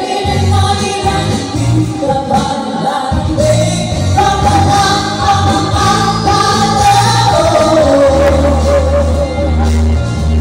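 Women singing into microphones over amplified backing music, holding long notes with vibrato above a steady bass line.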